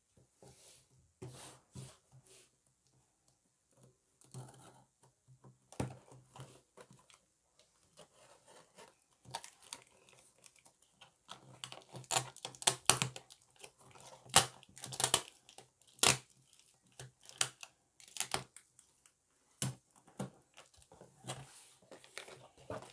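Parcel packaging being torn open and crinkled by hand: a long run of irregular rips, rustles and crackles, busiest in the middle stretch.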